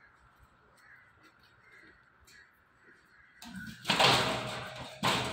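White tiger snarling through the fence: a loud, harsh snarl starting about three and a half seconds in, then a second, sharper one just before the end. Before that there is only faint room noise.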